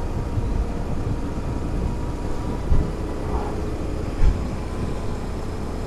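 Honda Transalp XL650V's V-twin engine running steadily at cruising speed, under heavy wind rush on the microphone, with two brief louder buffets a little past the middle.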